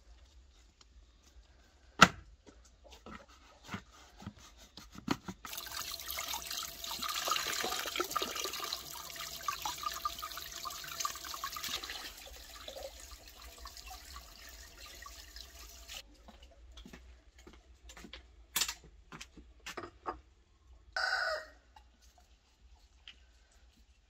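A sharp knock about two seconds in, then water pouring from a clay jug into a clay basin as hands are washed under it for about ten seconds. Near the end a chicken calls once, briefly.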